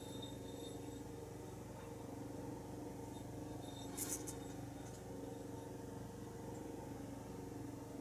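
Steady low motor hum with a brief sharp crackle about four seconds in.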